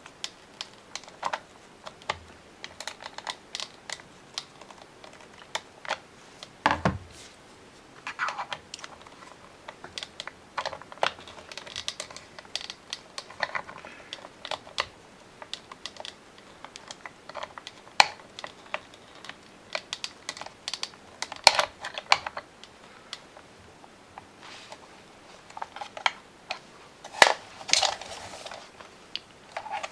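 Screwdriver prying at the glued plastic top jaw of a Teddy Ruxpin toy's head: irregular small clicks, taps and scrapes of metal against hard plastic, with a few louder sharp clicks and a dull knock about seven seconds in.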